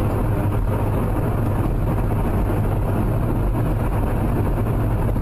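Steady car driving noise, engine and road rumble, a low drone under an even hiss with no impacts.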